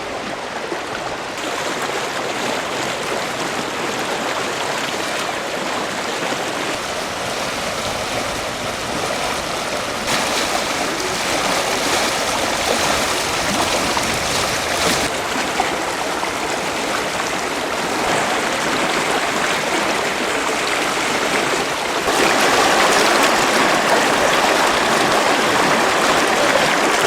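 Fast-flowing floodwater of the Padma River rushing, a steady hiss that gets louder about ten seconds in and again near the end.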